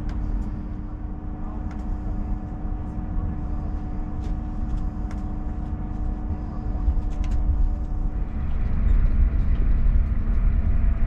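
SJ X2000 electric high-speed train: a steady low rumble with a steady hum. About eight seconds in, the hum gives way to a higher one and the rumble grows louder. A few faint clicks come through now and then.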